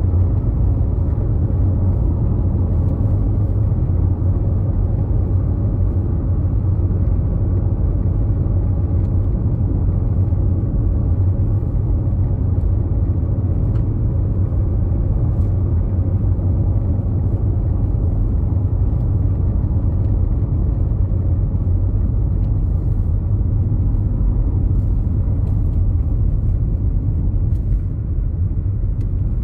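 Steady low rumble of a car driving along a sealed road, heard from inside the car: tyre and road noise.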